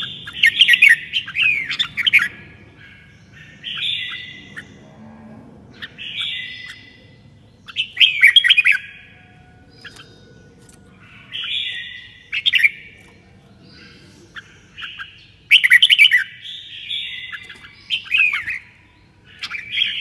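Red-whiskered bulbul singing: short, bright whistled phrases of quick up-and-down notes, repeated about every two seconds, some with sharp clicks.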